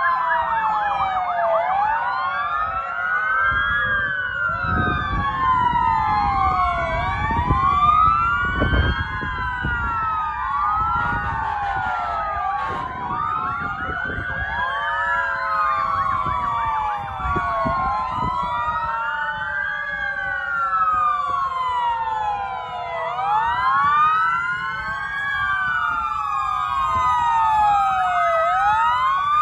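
Several fire truck sirens wailing at once, their rising and falling sweeps overlapping one another. Under them a lower steady siren tone slowly sinks in pitch, and a low rumble swells about five to nine seconds in.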